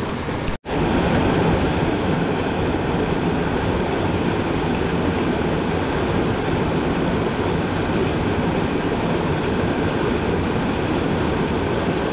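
Small mountain stream rushing over boulders in a whitewater cascade: a loud, steady rush of water. It drops out for a split second about half a second in, then resumes.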